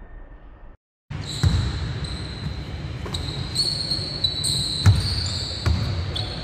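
Basketball bouncing on a hardwood gym floor during a game: a few sharp bounces over the steady din of a large hall, with a thin high whine running over it. The sound drops out completely for a moment about a second in.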